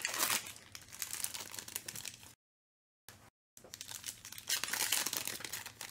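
Foil trading-card pack wrapper torn open and crinkled by hand, in two spells of crackling with a short dead pause between them.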